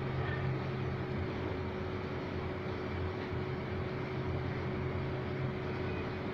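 Steady machine hum and hiss with a constant faint tone, unchanging throughout.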